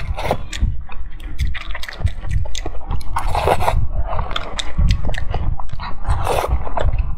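Close-miked mouth sounds of a person eating thick fried noodles: wet chewing and lip-smacking clicks throughout, with two longer slurps about three seconds in and again near the end as more noodles go into the mouth.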